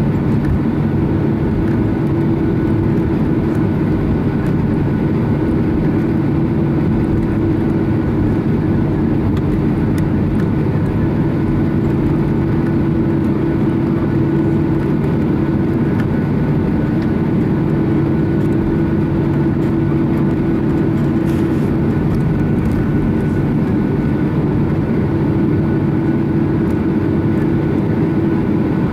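Boeing 737-900ER's CFM56-7B turbofan engines running steadily at low taxi thrust, heard from inside the passenger cabin as a constant drone with a few steady hums and no change in power.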